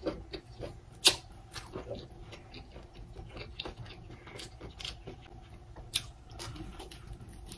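Chewing and biting on Hot Cheetos-crusted king crab legs: a run of short, sharp clicks and crackles, the two sharpest about a second in and near six seconds.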